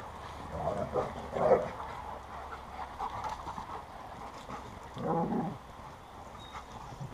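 Dogs vocalizing during pack play: a cluster of short barks and whines about a second in, and another short outburst about five seconds in.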